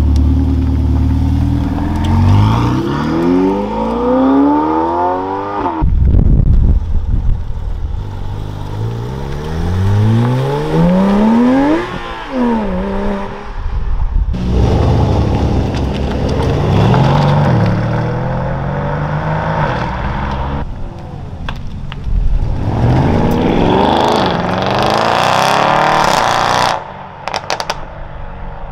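Performance cars accelerating hard away one after another, among them a Ferrari 488 V8 and a Porsche 911 GT3 flat-six. Each engine revs up through the gears in rising sweeps that drop back at every shift, and the sound cuts abruptly from one car to the next. It is quieter near the end.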